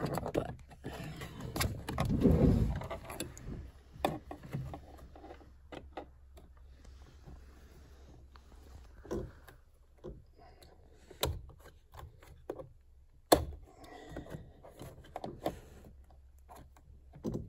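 Metal dental pick clicking and scraping against a plastic interior door handle and its retention clip as the clip is pried out. There are scattered small clicks throughout, a louder handling rustle about two seconds in and one sharp click about three-quarters of the way through.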